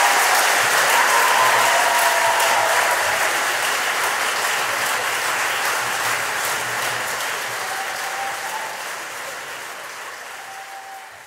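Concert hall audience applauding, the clapping steadily fading away.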